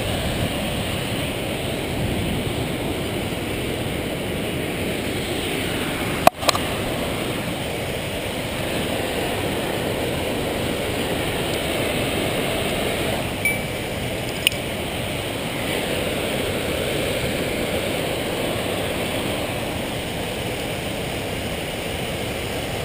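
Steady rushing outdoor noise, with one sharp knock about six seconds in and two small clinks a little past the middle.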